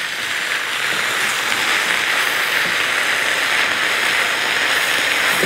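Diced chicken and chopped vegetables sizzling steadily in hot oil in a frying pan as they are stirred with a spatula, the vegetables cooking down until they wilt.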